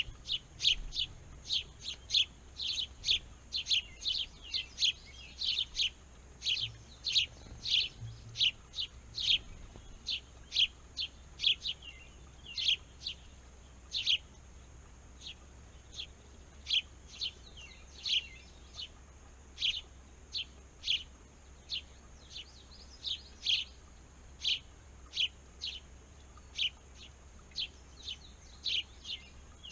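Small birds chirping: short, sharp chirps repeated over and over, about one to two a second.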